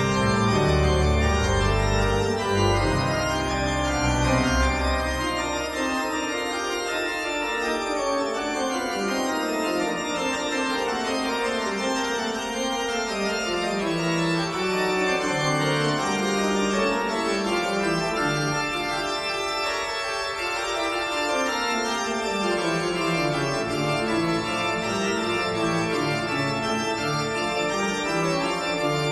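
Organ music: held chords that change in steps, with strong bass notes in the first few seconds.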